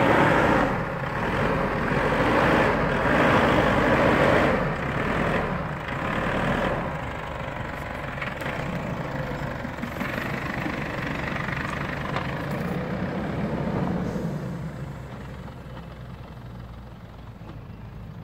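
Isuzu D-Max V-Cross pickup's diesel engine working hard while its tyres churn through loose sand. The engine then runs more steadily as the truck drives off, fading away near the end.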